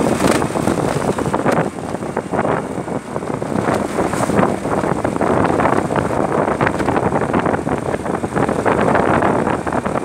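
Wind rushing and buffeting on the microphone of a moving vehicle, over its engine and road noise.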